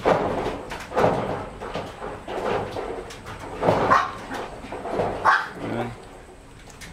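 A 25-day-old Shih Tzu puppy yelping and crying in short cries about once a second as it is hand-fed raw meat.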